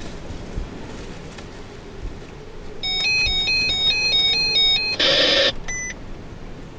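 A phone ringtone: a quick electronic melody of high stepping beeps starts about three seconds in and lasts about two seconds, followed by a short harsh buzzing burst and one last brief beep. A low wind rumble on the microphone runs underneath.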